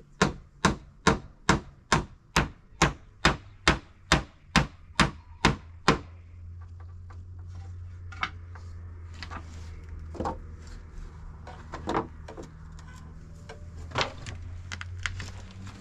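Hammer driving nails into wooden planks: a quick, even run of about a dozen blows, two a second. It stops about six seconds in, leaving a few scattered taps over a low steady hum.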